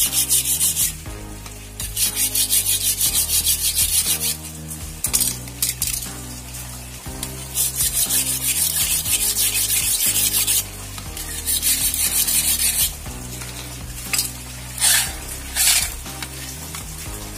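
Kitchen knife blade being sharpened, scraped rapidly back and forth on an abrasive surface in runs of one to three seconds with pauses, then two short single strokes near the end. Background music plays underneath.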